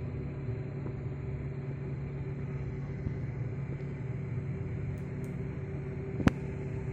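Hyundai R210 excavator's diesel engine idling steadily at an even pitch, running again after its ECM repair. A single sharp click sounds about six seconds in.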